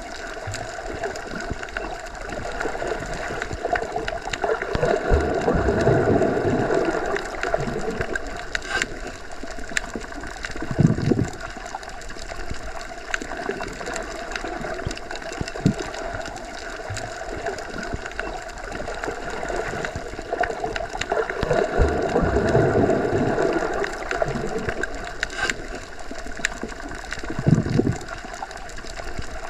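Underwater ambience: a steady, muffled wash of water noise heard as if submerged. It swells twice, each swell followed a few seconds later by a short surge, in a pattern that repeats about every sixteen seconds.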